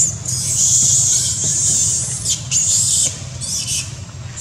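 Juvenile long-tailed macaques screaming as they scuffle. High-pitched squeals run almost without a break over the first three seconds, then come in a few shorter bursts.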